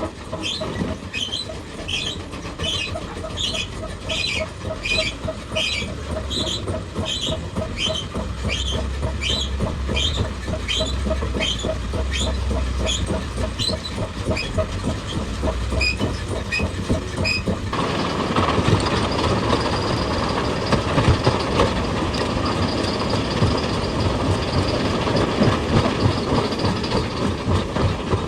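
Heavy machinery working with a regular clatter, about two knocks a second, that gives way about eighteen seconds in to a denser, steady mechanical noise.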